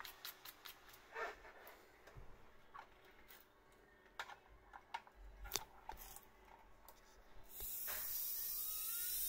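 Quick clicks and scattered knocks of a micromotor handpiece being twisted together and its cord plugged into the control unit. About seven and a half seconds in, the brushed micromotor handpiece starts running with a steady high whine that rises slightly, a little noisy because its brushes are newly seated and bedding in.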